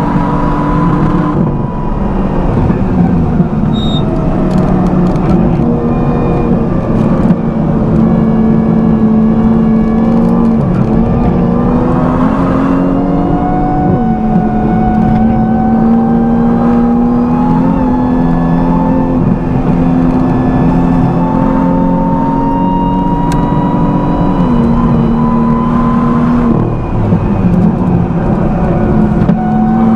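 BMW M2's N55 turbocharged inline-six driven hard on track, its pitch climbing slowly and then dropping suddenly several times as the driver shifts or lifts.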